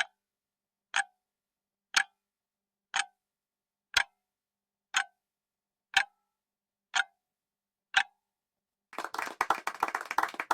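Quiz countdown-timer sound effect: a clock tick once a second, nine ticks in all. About nine seconds in, a short burst of clapping follows as the countdown runs out.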